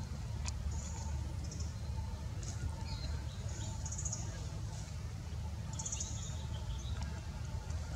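Short high-pitched animal chirps, four or five of them, over a steady low rumble.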